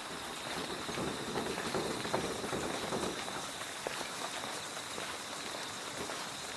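Autumn night insects trilling steadily at one high pitch. A crackling, rain-like rush of noise swells over it for about three seconds in the first half, then fades back.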